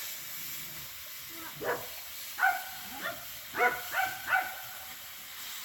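A dog giving a quick series of short, high yips, about six in three seconds.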